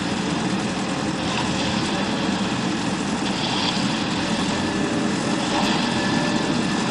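Engine of a self-loading concrete mixer truck running steadily, with a higher hiss that swells and fades about every two seconds.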